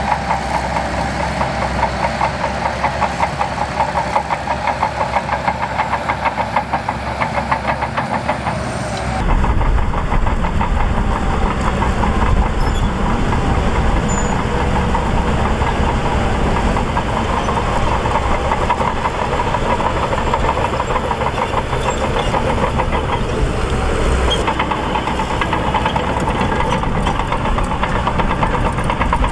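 Shantui DH17C2 bulldozer's diesel engine running as it works, with a fast pulsing beat. About nine seconds in the sound changes abruptly to a louder, heavier engine sound.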